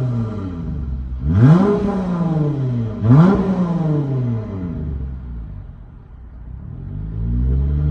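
Dodge Charger SXT's V6 through Flowmaster Super 10 mufflers, revved twice in quick blips about a second and a half apart, each rev falling back slowly toward idle. Near the end the revs climb again and hold steady.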